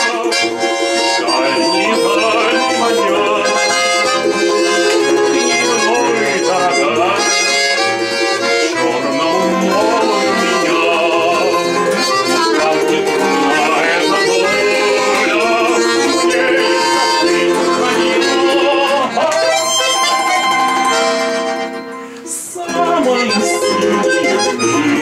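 Instrumental passage of a bayan (button accordion) playing with an acoustic guitar and a small plucked string instrument. The music dips briefly near the end, then carries on.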